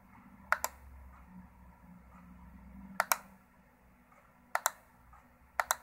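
A computer mouse button clicked four times, each click a quick press-and-release pair of ticks, over a faint low hum.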